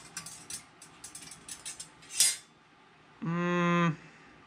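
Light clicking and rattling of small metal toaster parts being handled, with a sharper click about two seconds in. Near the end, a short, level-pitched "hmm" from a man deliberating.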